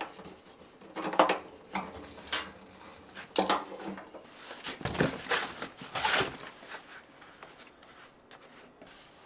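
Irregular metallic clanks and clinks of hand tools and engine parts being handled, loudest in the first six seconds and dying away near the end.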